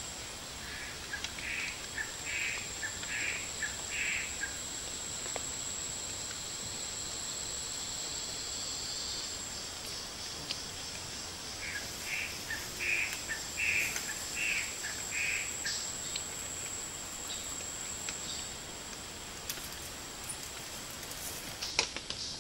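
Tropical forest ambience: a steady high-pitched insect drone, with two runs of five or six evenly spaced short calls, one near the start and one about halfway through.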